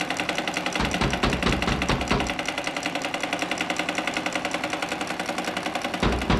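Electric sewing machine stitching fabric at speed, a fast, even mechanical rattle of the needle and motor.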